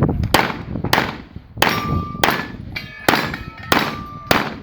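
A string of about seven pistol shots, roughly two-thirds of a second apart, fired from a Carry Optics competition pistol; a couple of shots are followed by a short metallic ring.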